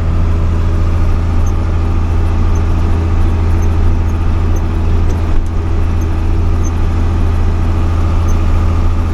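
Cab interior of a 1985 International Eagle semi truck under way: the diesel engine drones steadily at a constant low pitch.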